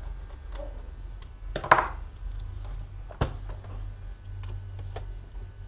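Light plastic clicks and taps from a laptop's case parts being handled and fitted back together. A louder click with a brief scrape comes about a second and a half in, and a sharp tap about three seconds in, over a steady low hum.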